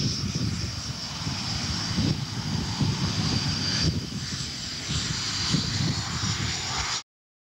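MiG-21 turbojet engine running at taxi power as the fighter rolls past: a steady high whine over a low, uneven rumble. The sound cuts out abruptly about seven seconds in.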